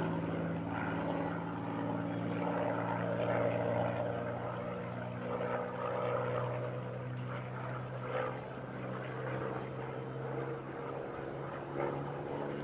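Piston engine of a single-engine propeller fighter in flight overhead: a steady drone of several pitched tones, the pitch shifting a little as the aircraft moves through its turn.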